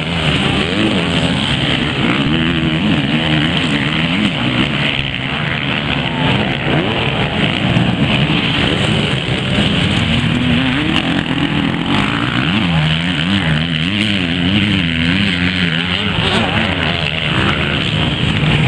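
Off-road racing motorcycles (enduro/motocross bikes) running on the course, several engines at once, their pitch rising and falling over and over as the riders rev and shift.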